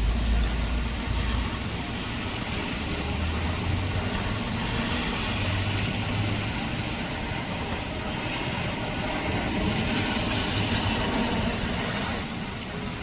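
Steady heavy rain with traffic on a wet street: a low rumble in the first second or so, then tyre hiss swelling twice as vehicles pass.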